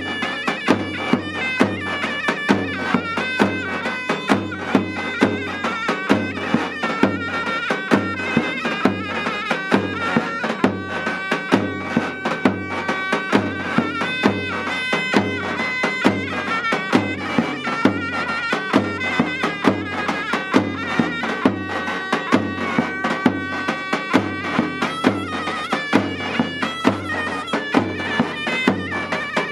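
Davul and zurna playing Turkish folk music: the zurna's piercing reed melody runs on without a break over steady, regular beats of the large double-headed davul.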